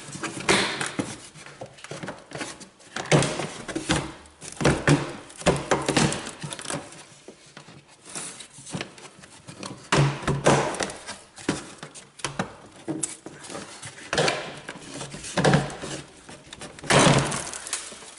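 Chevy Cavalier's plastic windshield cowl panel being worked loose and lifted up over the wiper shaft: a series of irregular knocks, thunks and plastic clatters.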